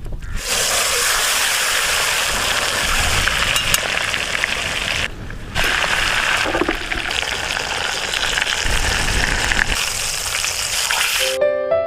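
Marinated rabbit pieces sizzling in hot oil as they fry, in two stretches with a short break about five seconds in. The sizzling cuts off near the end.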